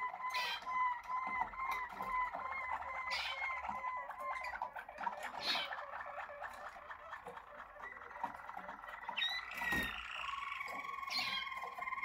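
Malinois Waterslager canary song: a run of repeated liquid notes about three a second, going into faster rolling trills, and ending on a long held tone. A few sharp clicks are heard among the notes.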